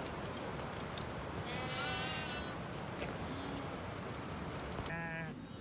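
Sheep in a grazing flock bleating: one long quavering bleat about two seconds in, a fainter short one a second later, and another near the end, over a steady background hiss.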